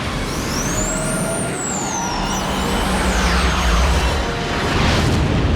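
F-15 fighter jet engines running loud, a high turbine whine rising and falling in pitch, then sweeping steeply downward as the jet passes, over a low rumble.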